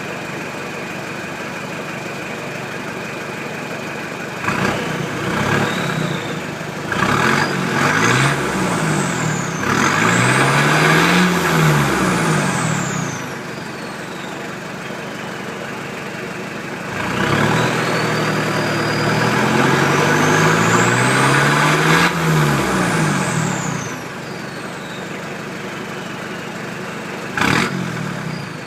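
Dodge Ram 50's 4D56 turbodiesel revved in a few short blips and two longer pulls from idle, with the turbocharger whistle rising with each rev and falling away as the engine settles back to idle. A thin high whistle stays over the idle in between.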